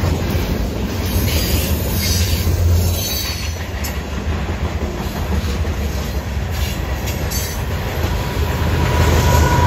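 Loaded covered-hopper grain train rolling past close by, its wheels rumbling and clacking on the rails with some squeal on the curve. Near the end the rear distributed-power diesel locomotive comes up working under power, and the sound grows louder.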